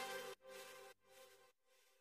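The final chord of an electronic dance track echoing away in about three fading repeats half a second apart, gone about a second and a half in.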